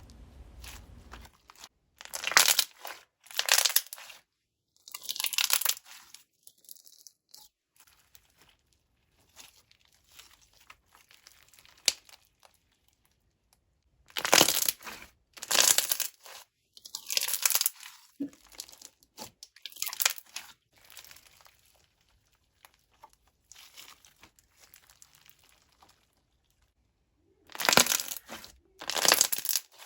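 Soft jiggly slime loaded with jelly cubes and slushy beads being squeezed and pressed by hand, giving bursts of crackling and crunching from the beads, in several clusters separated by quiet pauses.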